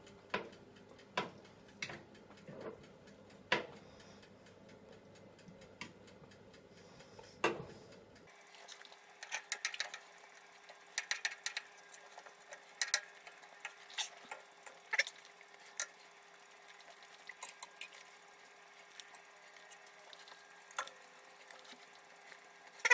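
Light clicks and scrapes of a metal cooking utensil against a metal oven tray as gammon slices are turned over. The clicks are scattered at first and come thicker and faster from about eight seconds in.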